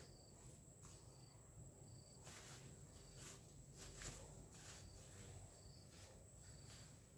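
Faint garden ambience: a steady high insect trill with short high chirps now and then, and brief rustles of leaves and stems as a stick is pushed through squash vines.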